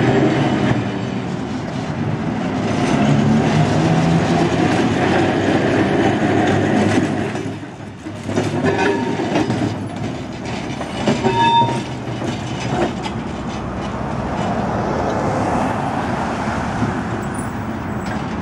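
A vintage electric streetcar runs past on street track with a steady motor and running hum. Its wheels clatter over rail joints and crossings in a run of clicks midway through, with a brief ringing tone about eleven seconds in.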